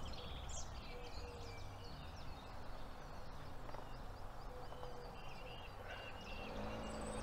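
Dawn chorus of many songbirds chirping and trilling over the steady low rumble of distant road traffic.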